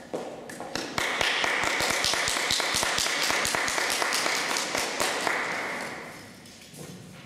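Audience applauding, starting about a second in and dying away near the end, with a few clicks of high-heeled footsteps on a parquet floor at the start.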